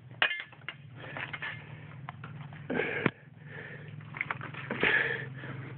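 A person clambering through brush into a muddy gully: crunching footsteps, rustling branches and leaves, and a few sharp knocks from handling the camera. The sounds come in short bursts, the loudest near the start, about three seconds in and about five seconds in.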